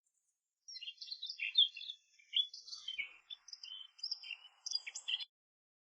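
A songbird singing a quick string of high, varied chirps and whistled notes that starts just under a second in and stops suddenly about five seconds in.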